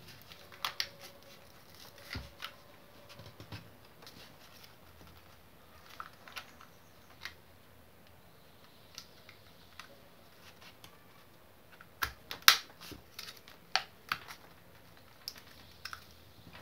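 Irregular plastic clicks and taps as the hot air brush's plastic housing parts are fitted and pressed back into place, with the loudest run of clicks about twelve seconds in.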